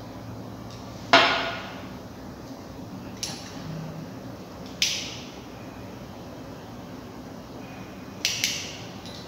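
Glass laboratory glassware clinking and knocking as a glass pipette and a glass reagent bottle are handled: a sharp, ringing clink about a second in, smaller clinks a couple of seconds apart, and a quick double clink near the end.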